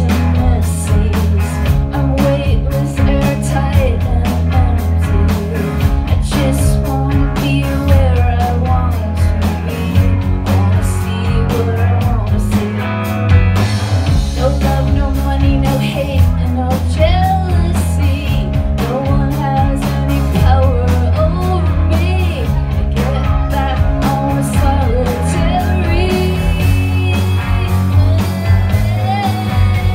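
Live rock band playing a song: a woman singing lead over electric guitars, bass guitar and drums.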